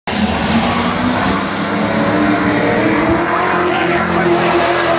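A pack of late model stock cars racing at full throttle, their V8 engines running loud and steady, the pitch rising as two cars come past close by in the second half.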